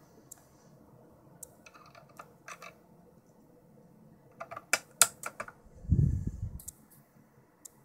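Scattered sharp clicks, with a quick run of loud ones past the middle, followed by a brief low rumble of a hand-held camera being moved.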